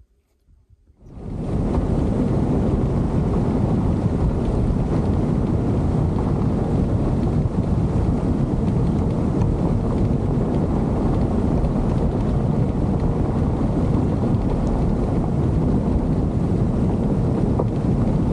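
Steady wind rush and low rumble on an outside-mounted camera's microphone as a 4x4 drives along a dirt track. It starts suddenly about a second in and stays loud and even.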